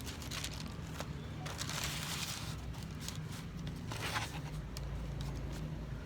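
Packaging being handled: short rustling swishes and small clicks, twice swelling into longer rustles, over a low steady hum.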